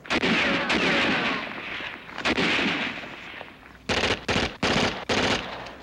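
Small-arms gunfire in a firefight: a dense rattle of shots for about two seconds, a second shorter volley, then about five sharp separate shots in quick succession near the end.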